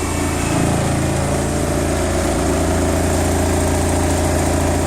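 Four Skar Audio ZVX 18-inch subwoofers in a transmission-line enclosure playing a loud, steady 28 Hz bass burp at full power, metered at 154.2 dB. A dense buzz rides over the bass throughout.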